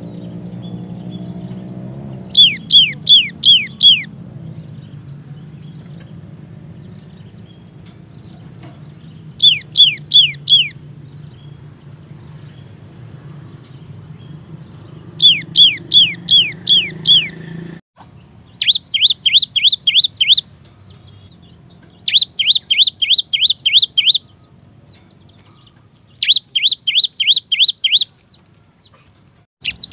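Cinereous tit (gelatik batu) singing in repeated bursts: six runs of five to eight quick, sharp whistled notes, each note sliding down in pitch, with a pause of a few seconds between runs. A low steady hum underneath cuts off suddenly about two-thirds of the way through.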